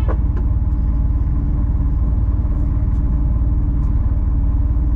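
Diesel engine of a 26-tonne rigid lorry running with a steady low rumble.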